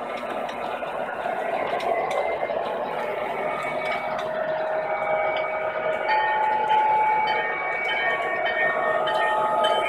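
O gauge model trains running on the layout: a steady rolling rumble of wheels and motors on the track, with several steady high tones coming in over it about halfway through.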